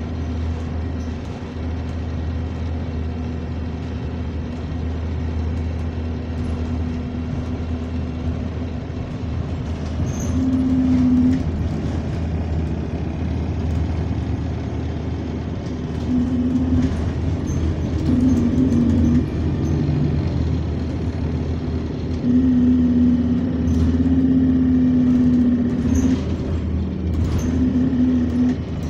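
A double-deck bus's diesel engine and air compressor running, heard from the upper deck while driving: a steady low drone with a louder hum that swells and fades several times.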